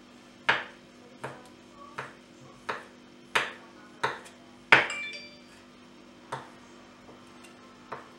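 Chef's knife chopping boiled octopus on a wooden cutting board: about nine sharp knocks of the blade hitting the board, most under a second apart. The loudest knock, just before five seconds in, rings briefly, and a longer gap follows it.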